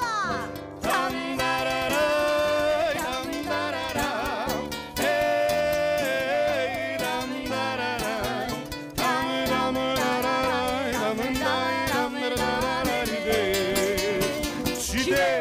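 Live folk music: a voice singing an ornamented, wavering melody over plucked string accompaniment with a steady pulse.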